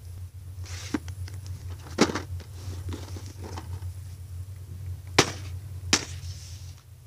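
Handling noise: sharp clicks and rustling as the case and phone are handled, over a steady low hum. The loudest click comes about five seconds in, with another a moment later.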